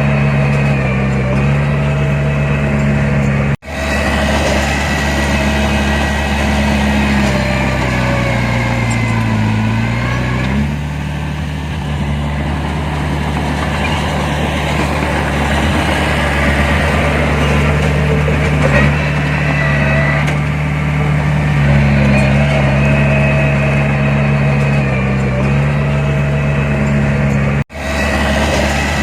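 Heavy diesel engine of earthmoving machinery running steadily under work. Its pitch sags about eight to ten seconds in, shifts to a lower, rougher note, and later returns to the earlier steady note; the sound drops out for an instant twice.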